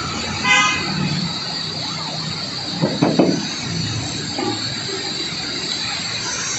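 Cordless drill driving a screw through a metal mounting bracket into a corrugated metal roof, with a short whine about half a second in and a few sharp knocks around three seconds in.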